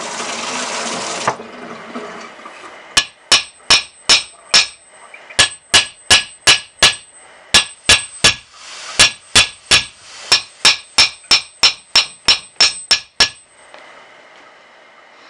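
Hammer striking metal on a heated Triumph T120 cylinder barrel to shock a seized part loose, each blow ringing. About thirty sharp strikes come in short runs of four or five, then a quicker run of about fifteen near the end.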